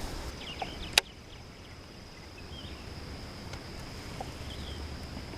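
Scattered short bird chirps over a steady high-pitched tone, with one sharp click about a second in.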